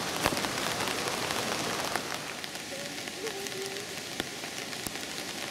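Steady rain falling, with scattered sharp drops ticking close by.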